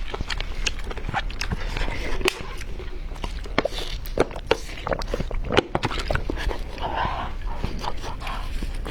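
A person eating close to the microphone: irregular, quick wet clicks and smacks of chewing and biting.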